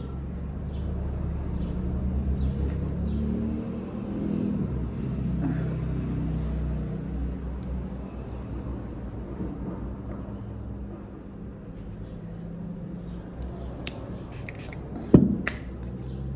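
A steady low rumble, with one sharp slap about fifteen seconds in.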